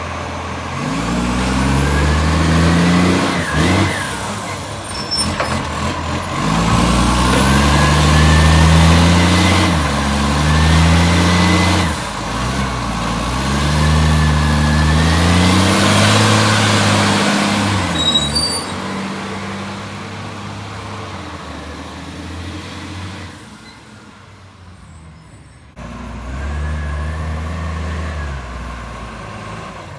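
Garbage truck's diesel engine accelerating over and over, its pitch climbing and dropping through the gears, loud from a leaking exhaust. It goes quieter for a few seconds near the end, then pulls up once more.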